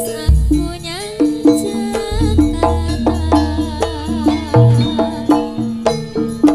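Javanese gamelan ensemble playing jaranan music: drums beating a steady rhythm over struck metallophone notes, with deep low strokes near the start and about two seconds in.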